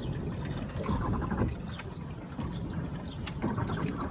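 Floodwater sloshing and trickling around a car.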